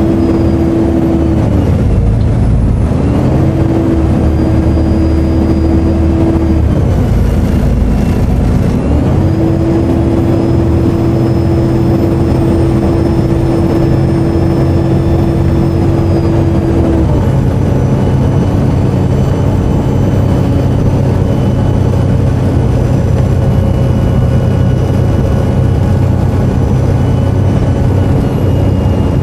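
Volvo B7TL double-decker bus's turbocharged diesel engine heard on board under way, with a thin high turbo whine over the engine drone. The engine note drops away twice, around two and seven seconds in, picks up again each time, and settles to a lower note about seventeen seconds in.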